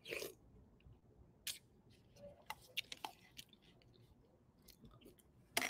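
A person chewing food with soft mouth clicks and smacks, taking bites from a spoon. There is a louder cluster of smacks near the end.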